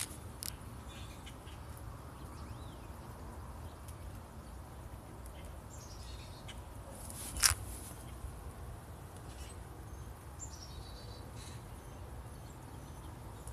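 Outdoor ambience: a steady low rumble with a few faint, short bird chirps, and one sharp click about halfway through.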